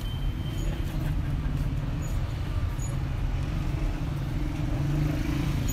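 Street traffic: a steady low rumble of car and motorcycle engines in slow-moving city traffic, a little louder near the end.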